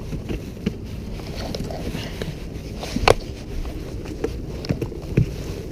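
Steady low rumble of a fishing boat on the water, with scattered small knocks and clicks and one sharp click about three seconds in.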